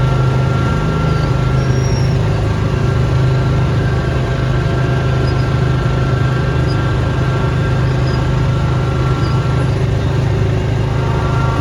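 Small gasoline engine of a snowblowing machine running steadily at a constant pitch, with a strong low hum.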